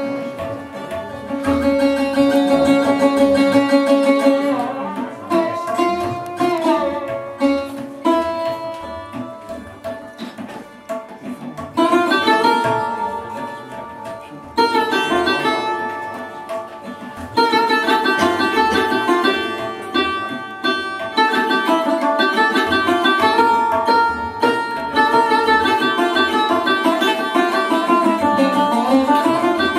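Live Indian classical music: a plucked lute with a skin belly plays a melody with sliding notes over tabla strokes. The playing grows louder and busier about twelve seconds in.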